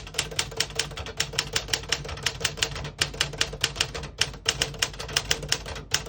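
1960 Smith-Corona Sterling manual portable typewriter being typed on quickly: a steady run of key strikes, about five or six a second.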